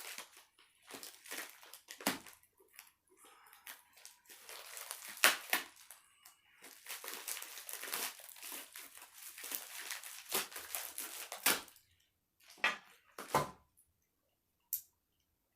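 Knife packaging being handled and torn open, with a steady run of crinkling and crumpling, then a few separate sharp clicks near the end.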